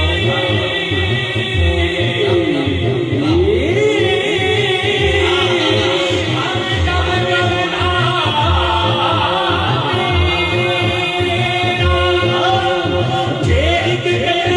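Male solo voice singing an Urdu devotional hamd in long, gliding melodic lines through a microphone, with other voices joining, over a steady low beat.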